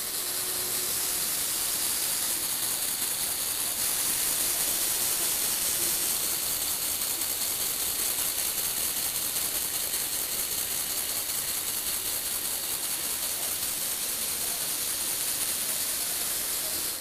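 Lego Technic electric motors and plastic gear trains whirring and rattling as the platform tilts and rotates the model car. It runs at a steady level and cuts off suddenly at the very end.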